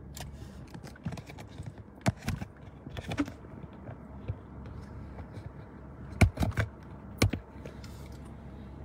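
Scattered sharp knocks and taps, a few in quick succession around two, three, six and seven seconds in, over a low steady rumble.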